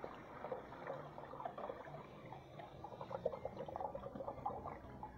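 Water trickling and splashing in an American Standard Washbrook urinal bowl, an irregular run of small splashy drips.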